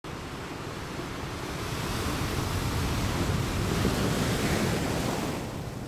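Ocean surf: a steady rush of breaking waves that swells slowly and fades out near the end.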